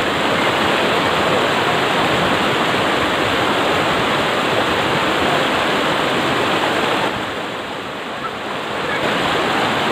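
Fast river water rushing over rocks in a shallow white-water rapid: a loud, steady rushing, a little quieter for a couple of seconds about seven seconds in.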